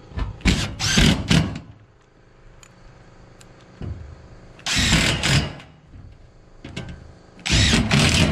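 Cordless drill boring holes through a corrugated steel roofing panel, in three short bursts of about a second each: near the start, in the middle and near the end.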